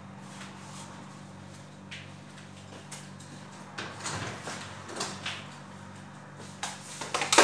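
Kitchen handling sounds: scattered knocks and clicks from about three seconds in, ending in one loud sharp clack near the end, over a steady low hum.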